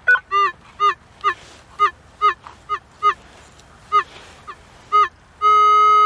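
Minelab CTX 3030 metal detector sounding repeated short target tones, about two a second, each beep bending slightly in pitch, as the coil is swept back and forth over a buried metal target. Near the end it gives one long steady tone.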